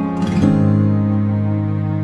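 Acoustic guitar strummed once more about half a second in, then the chord left ringing and slowly fading.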